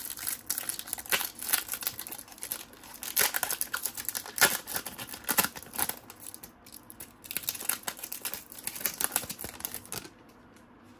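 Foil wrapper of a 1994-95 Topps Finest trading-card pack crinkling and tearing as it is peeled open by hand, in a dense run of crackles that stops near the end.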